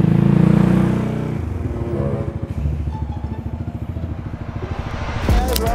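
Yamaha X-Max scooter engine running hard for about a second and a half, then easing off to a lower steady run as the rider slows for a brake test. Near the end, music with a hard beat comes in.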